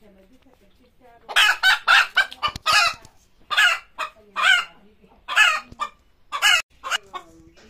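Hen squawking in a run of loud, harsh calls that start about a second in and come in short groups, the calling a hen makes around laying an egg.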